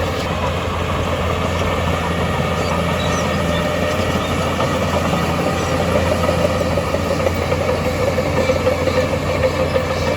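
Heavy earthmoving machine's diesel engine running steadily at an even pitch, with a constant low hum under a steady drone.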